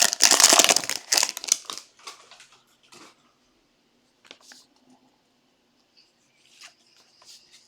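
Trading card pack wrapper crinkling and tearing for about two seconds, then a few faint taps and clicks of cards being handled.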